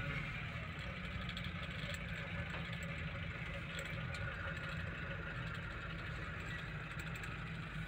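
Car engine and tyre noise heard from inside the cabin while driving slowly: a steady low hum.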